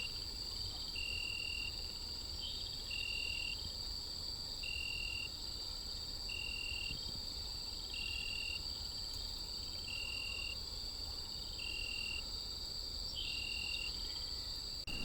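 Insects calling: a steady high-pitched trilling chorus, with a lower chirping call of under a second repeating about every second and a half to two seconds.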